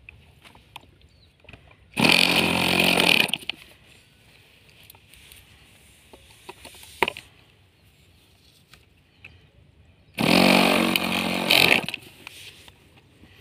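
Handheld electric starter spinning over an OS 15LA two-stroke glow engine on a model plane, two whirring bursts of about a second and a half each, eight seconds apart; the engine does not catch and run. A single sharp click falls between the two bursts.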